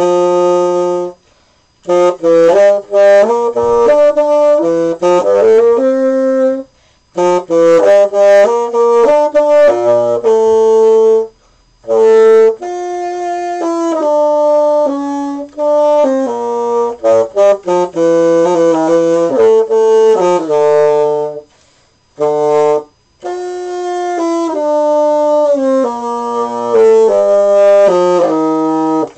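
Solo bassoon playing a melody in phrases of quickly changing notes, broken by a few short pauses.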